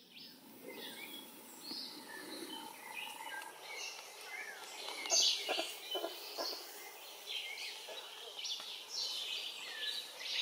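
Birds chirping and calling: many short, overlapping calls and small falling whistles, with a few sharp clicks about five to six and a half seconds in.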